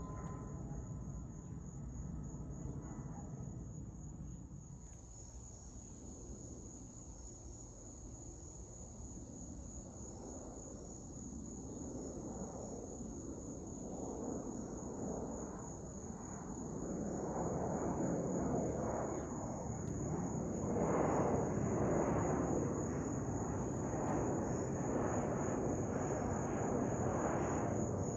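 Twin-engine jet airliner passing overhead, its engine rumble swelling from about ten seconds in and loudest near the end. A steady high chirring of insects runs underneath.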